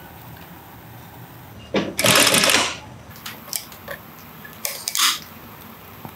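Industrial sewing machine running a short burst of stitching, about a second long, starting about two seconds in, over a steady low hum. Near the end come two quick snips of scissors.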